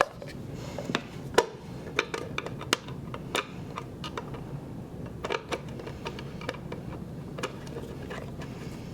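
Irregular clicks and light knocks of hard parts being handled as the front cover is fitted back onto a Fisher FIELDVUE DVC6200 digital valve controller.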